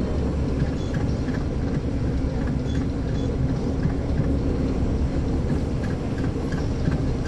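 Caterpillar C13 ACERT diesel engine of a NABI 40-SFW transit bus, heard from the rear seats inside the bus, running steadily with a deep even drone. A faint regular ticking, about two a second, sits above it.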